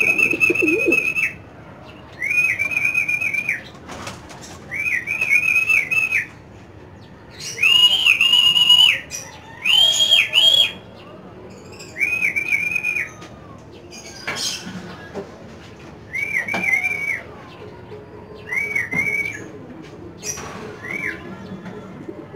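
A person whistling over and over, about nine warbling whistles each roughly a second long, to call an arriving racing pigeon down to the loft.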